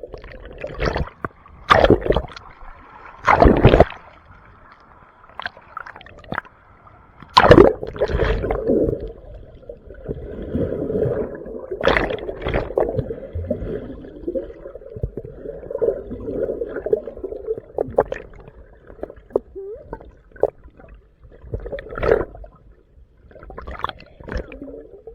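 Water splashing in short, loud bursts several times, with people's voices in between.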